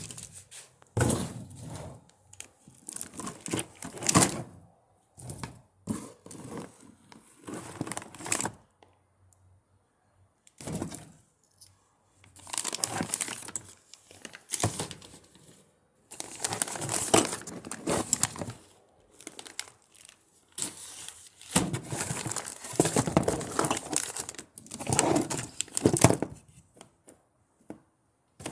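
Crinkling and rustling of packaging being handled, in irregular bursts with short pauses between.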